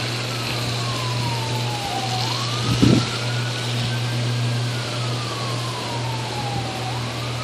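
Distant emergency-vehicle siren in a slow wail, its pitch sliding down over about two seconds, jumping back up, then sliding down again and rising near the end, over a steady low hum. A short, louder low burst about three seconds in.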